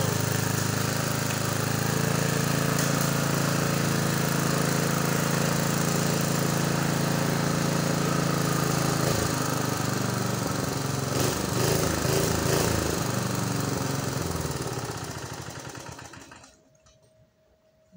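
Lawn mower's small petrol engine running steadily at high speed, holding its revs after a carburettor diaphragm repair. About nine seconds in its note turns unsteady and wavers, and near the end the sound dies away.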